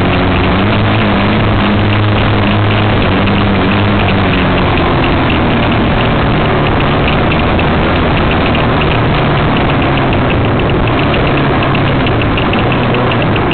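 Enduro dirt bike engine running loud and close under throttle on a trail ride, its pitch shifting after about five seconds, over a constant rush of noise.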